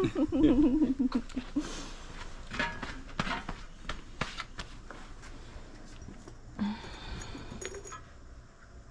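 Light clicks and knocks of ceramic and glass knick-knacks being handled on a table, after a brief wordless voice sound at the start.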